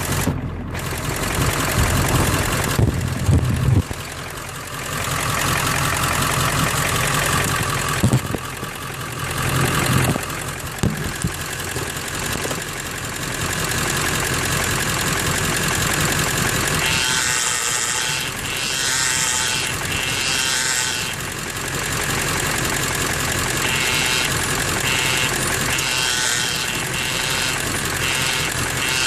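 A truck's 7.3-litre engine runs steadily. In the second half a series of short, higher-pitched noises repeat about once a second: the steering or brake noise being shown.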